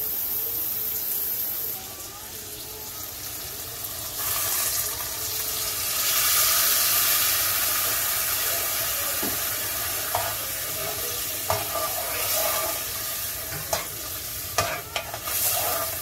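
A kitchen tap runs briefly at the start, then curry veggie chunks sizzle in a hot pot on the stove, loudest from about four seconds in. Near the end a spoon knocks against the pot a few times as the curry is stirred.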